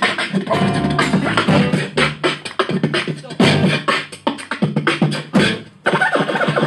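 Solo beatboxing into a handheld microphone, amplified through a PA: a fast run of percussive mouth clicks, kicks and hi-hat-like hisses over low sustained tones, with a brief break about six seconds in.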